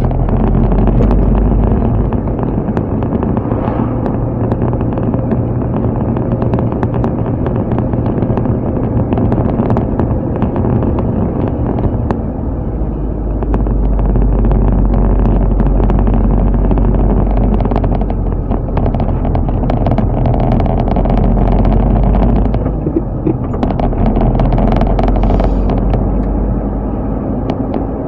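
A car driving, with steady engine and road rumble that eases slightly and then picks up again twice.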